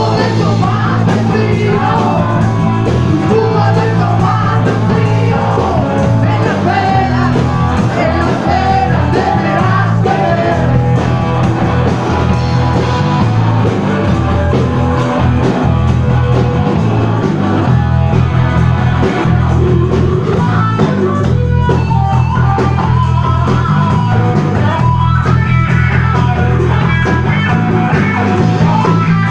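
Blues-rock band playing live, with guitar and singing over a heavy, steady bass.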